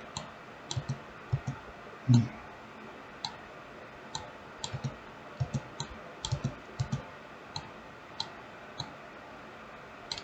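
Computer mouse clicking at an irregular pace, some clicks in quick pairs, while operating the video-editing software.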